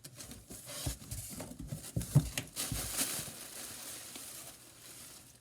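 Packaging being handled and pulled open: rustling and crinkling with scattered light knocks, dying away after about three seconds.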